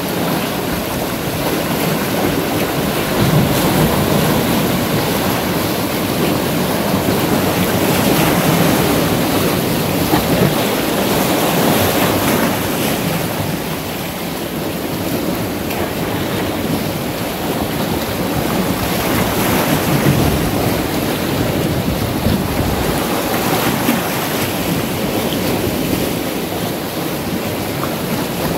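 Sea waves surging in and washing around rocks at the shoreline, a continuous rushing that swells and eases every few seconds.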